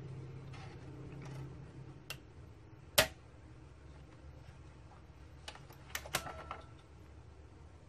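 Blank DVD-R being loaded into a Sony Vaio laptop's optical disc drive. There is one sharp, loud click about three seconds in, then a quick cluster of lighter clicks around six seconds, over a low hum.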